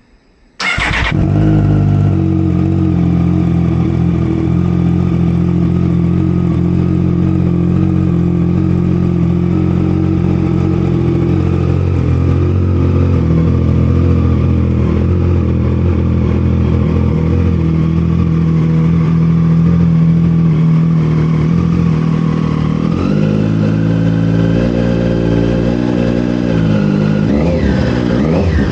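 Triumph Street Triple 765 RS three-cylinder engine, breathing through a Zard full titanium exhaust, started from cold: it catches about half a second in and settles into a steady idle. About 23 seconds in the idle rises a little, and near the end the throttle is blipped, the pitch rising and falling.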